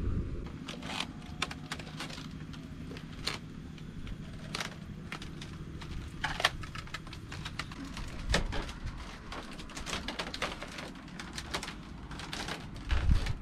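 Irregular light clicks and knocks of footsteps and creaking on bamboo stairs and a bamboo floor, over a low steady rumble, with a louder low thump near the end.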